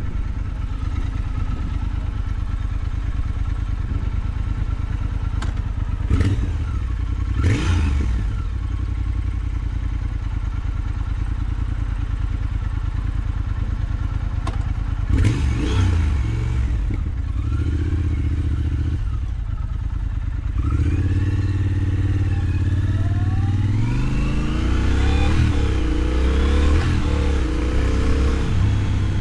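Triumph Thruxton 1200 parallel-twin with a Motone X-pipe exhaust, being ridden: engine running under load with a few quick revs in the first half, then a longer pull through rising engine pitch near the end.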